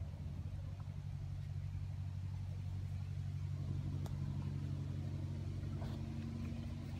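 A steady low engine hum, like a motor idling, with a single faint click about four seconds in.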